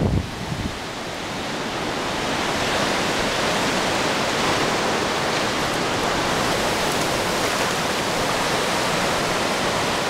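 Ocean surf breaking and washing up over the shallows as a steady rushing hiss, growing louder over the first couple of seconds and then holding. A few low thumps come right at the start.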